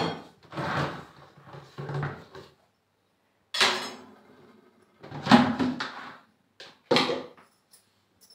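Aluminium pots and lids being handled and set down on a wooden floor: a series of about six separate clunks and scrapes.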